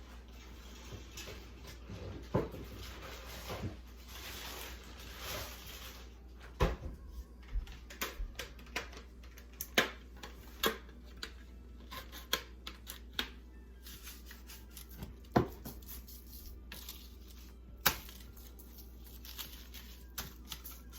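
Kitchen handling sounds while raw chicken is seasoned: a seasoning shaker shaken for a few seconds early on, then scattered light clicks and taps of containers and utensils, over a steady low hum.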